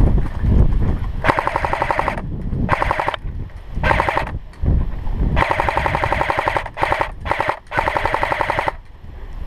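Airsoft AK-pattern rifle firing full-auto bursts: about seven short bursts of rapid, closely spaced shots, the longest over a second.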